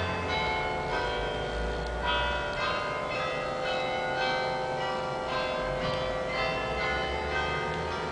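Carillon bells playing a slow melody, each struck note ringing on under the next.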